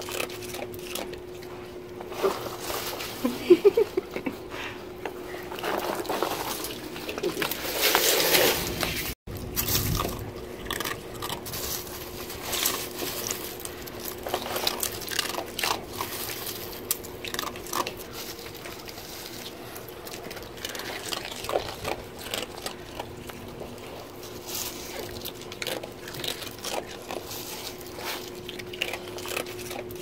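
Two sea otters crunching and chewing spiny sea urchins: irregular wet crackling, smacking and crunching of shell and spines, with short grunts.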